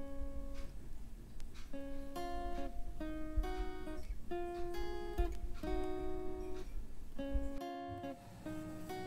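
Background music: an acoustic guitar plucking a melody note by note, with a brief break in the music near the end.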